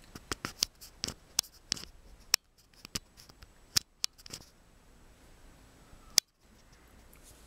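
Lip gloss being applied with a wand applicator: a run of sharp little clicks from the lips and applicator, many in the first four and a half seconds, then one more about six seconds in.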